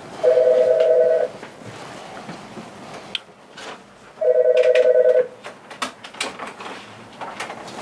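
Telephone ringing twice, each ring about a second of warbling two-tone trill, the rings about four seconds apart. A few clicks and knocks come between the rings and after them.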